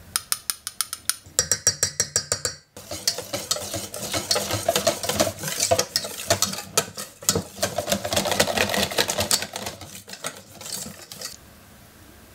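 A shaker jar of ground cinnamon shaken over a bowl, giving rapid rattling taps for about two and a half seconds. Then a wire whisk beats liquid pumpkin pie filling in a stainless steel bowl, with quick scraping clinks of wire on metal that stop about a second before the end.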